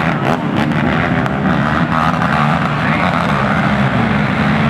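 Several racing quads (four-wheeled ATVs) running hard together, their engines revving and wavering in pitch as the pack speeds along the dirt track.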